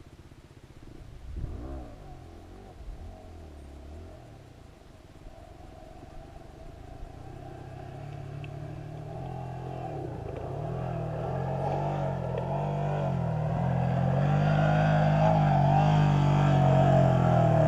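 An off-road vehicle's engine under throttle climbing a hill, growing steadily louder as it comes closer, its pitch rising and falling with the throttle.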